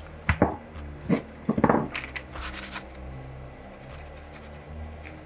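Handling and wiping a plastic DVD drive carriage with a paper towel: a few sharp clicks and knocks in the first two seconds, then rubbing, over a steady low hum.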